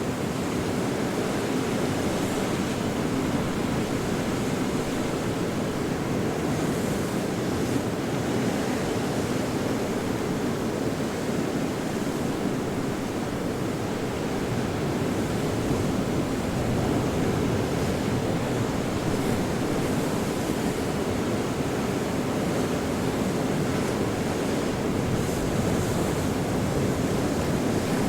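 Ocean surf: breaking waves making a continuous, dense wash of noise, with no single crash standing out and only slight swells in loudness.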